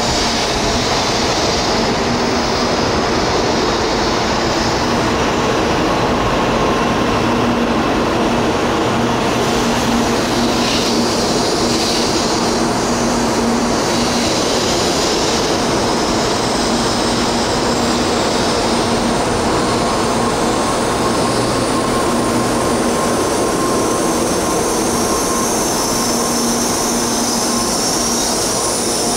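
Tokaido Shinkansen train running on the track through the station: a loud, steady rail noise with a low hum throughout.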